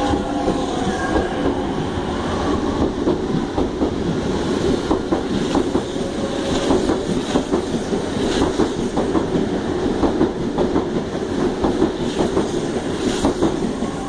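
SuperVia electric commuter train pulling out of the station and running along the platform. A steady whine at first, then a rapid, uneven run of wheel clicks and clacks as the cars pass, easing slightly near the end as the last car leaves.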